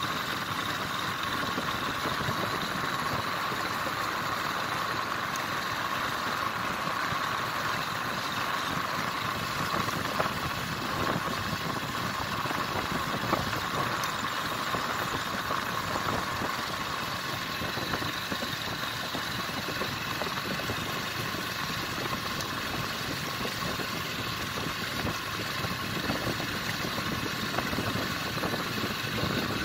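Motorcycle engine running steadily under way, mixed with a continuous rush of wind and road noise.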